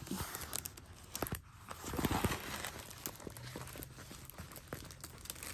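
Diamond painting canvas with its clear plastic cover film being unrolled from a tube by hand: crinkling and rustling handling noise, with a louder rustle about two seconds in.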